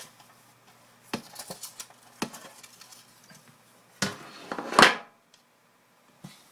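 Handling noise at a table: scattered light clicks and taps, then a short, loud rustle about four seconds in.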